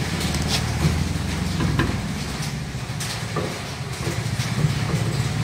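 A steady low engine rumble, like a vehicle idling, runs throughout, with a few short, light metal clinks as the steel front axle beam is shifted into place on its centre-pin housing.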